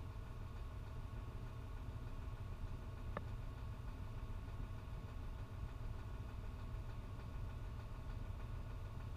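Fendt 939 tractor's diesel engine running at a steady low drone, muffled as heard inside the closed cab, with one short click about three seconds in.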